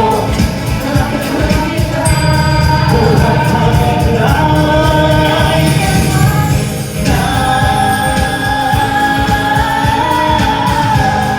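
Live pop song performance: a lead vocal with backing harmonies sung over a full band backing track.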